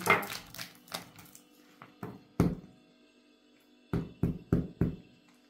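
A plastic bottle packed with peppers and brine is knocked and set down on a granite countertop. A few separate knocks, the sharpest about two and a half seconds in, are followed by four quick knocks near the end.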